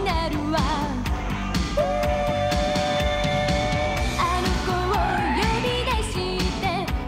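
Upbeat pop-rock song with a sung melody over a steady drum beat; about two seconds in, one long note is held for a couple of seconds.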